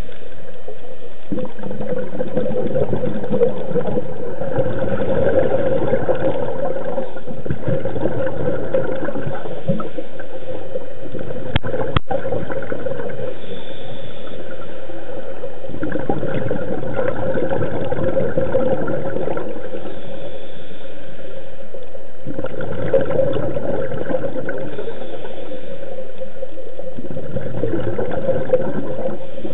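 Water gurgling and bubbling as heard underwater, swelling and fading in waves several seconds apart, with a single sharp click about twelve seconds in.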